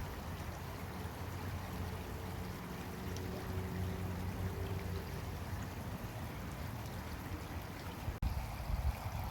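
Creek water flowing steadily in a continuous rush, with a low steady hum beneath it. About eight seconds in the sound cuts out for a moment, then low thumps come in.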